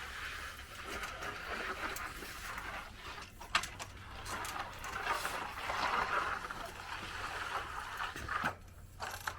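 A hand finishing tool scraping over freshly poured wet concrete in uneven strokes, with a few sharp clicks.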